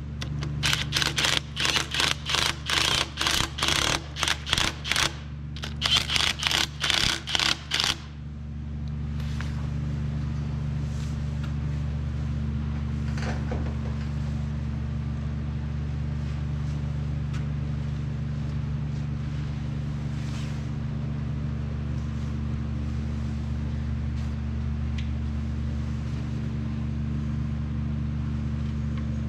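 Power tool running in short rapid bursts, about three a second with a brief pause midway, as it runs down the main bearing cap bolts on the Cummins block. It stops about eight seconds in, leaving a steady low hum.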